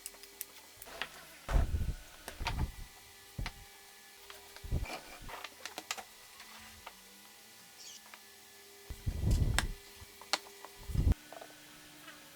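Wooden pieces being handled: irregular light clicks and taps, with a few heavier knocks about a second and a half in and again near the end.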